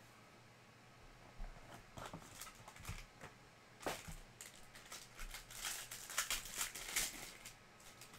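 Trading cards in plastic sleeves and hard top loaders being handled and set down on a table: a run of soft taps, clicks and plastic crinkling, busiest about six to seven seconds in.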